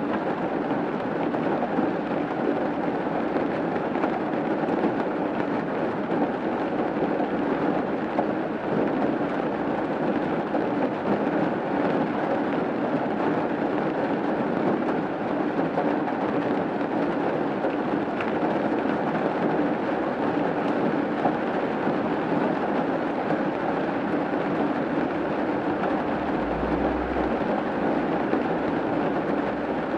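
Rain falling steadily on a roof, a dense, even patter that does not let up.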